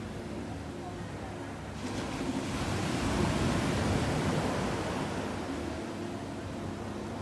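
Ocean surf: a wave breaks and washes up the beach, swelling about two seconds in, loudest a second or two later, then fading away.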